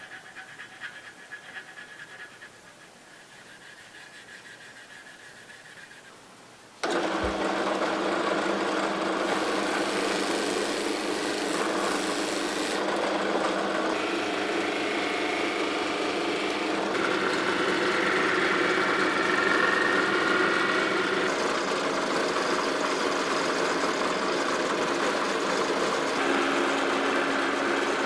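A drill press starts suddenly about seven seconds in and runs steadily, spinning a polishing wheel. The sound shifts several times as a brass knob is held against the wheel and polished.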